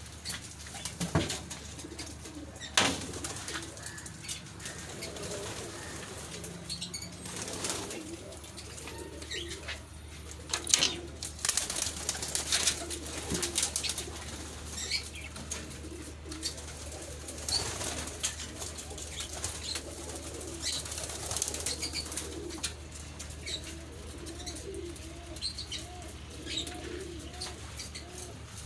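Domestic pigeons cooing, with repeated wing flapping as birds take off and land. The loudest flaps come about a second in, at about three seconds, and around the middle.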